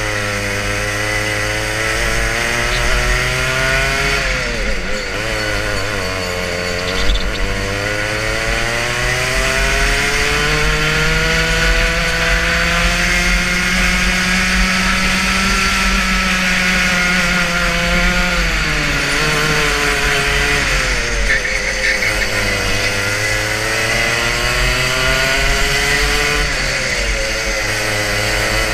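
Two-stroke racing kart engine heard from on board at full throttle, its pitch climbing through the gears-free rev range along the straights and falling sharply three times as it slows for corners, with one long climb in the middle.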